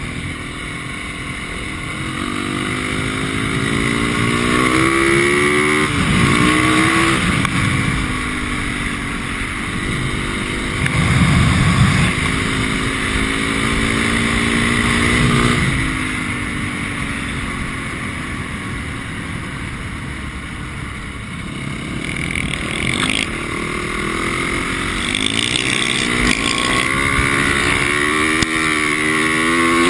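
A 450cc single-cylinder four-stroke dirt bike engine accelerating and backing off again and again, its pitch climbing under throttle and dropping between pulls, with a quieter stretch about two-thirds of the way through before it picks up again.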